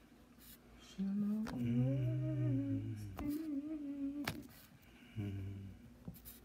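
A low voice humming a slow tune in long held notes, in three phrases, with a few sharp clicks in between.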